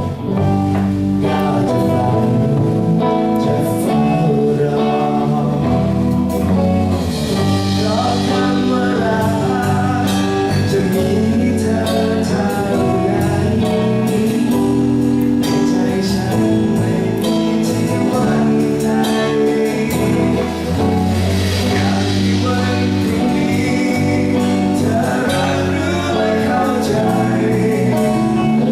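A live band playing a song: a singer over lead guitar, bass and drums, with cymbals ticking throughout.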